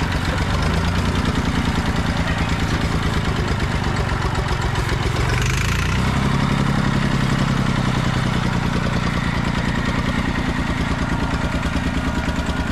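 Massey Ferguson 200 Turf tractor engine running steadily while the tractor drives up onto a flatbed trailer, its note shifting about six seconds in. A brief hiss sounds about five seconds in.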